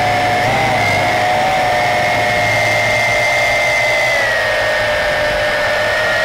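Yizhan Tarantula X6 quadcopter's electric motors and propellers whining steadily in flight, picked up close by the camera on the airframe, with a rushing hiss underneath. The pitch sags slightly about four seconds in.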